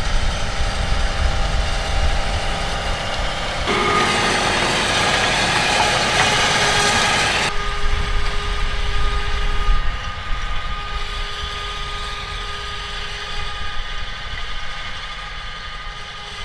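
John Deere 8RX tracked tractor running under load, pulling a Maschio power harrow through the soil: a continuous engine drone with a steady whine. The sound turns brighter and noisier about four seconds in and drops back near eight seconds.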